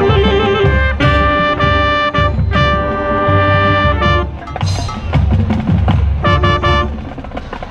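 Marching band brass playing from inside the trumpet section: trumpet and brass chords over drums and low bass. The chords are held for the first few seconds, break off about four seconds in, and return as short accented stabs after about six seconds.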